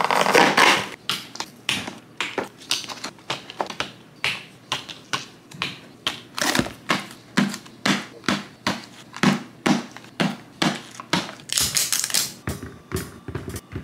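A cardboard box tearing open, then a run of sharp taps and clacks, about two a second, as plastic-capped squeeze pouches are set down one by one on a countertop.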